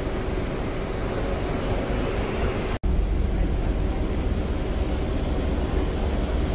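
Steady rumble of a moving open-top double-decker tour bus and the traffic around it, with wind on the microphone. The sound cuts out for an instant about three seconds in and comes back slightly louder.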